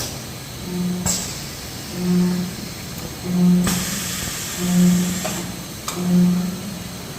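Automatic blister packaging machine running through its cycle: a low hum of about half a second repeats roughly every second and a quarter, with sharp clicks between the hums and a hiss of air lasting about a second and a half near the middle.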